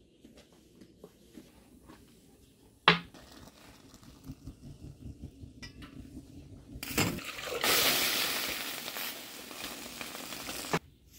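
A sharp metal clink, then small clinks of a stainless steel teapot being handled. Then water is poured from a metal jug into the teapot for about three seconds, stopping abruptly near the end.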